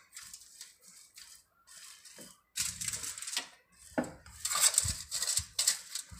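Wooden rolling pin rolling out a nut-studded sesame-jaggery dough on a foil sheet, the foil crinkling and rustling in irregular strokes, louder in the second half, with a knock about four seconds in.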